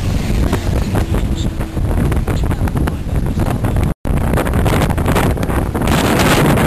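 Heavy wind buffeting the camera microphone over the low rumble of a moving vehicle, dense and crackly throughout. The sound drops out for an instant about four seconds in, then resumes.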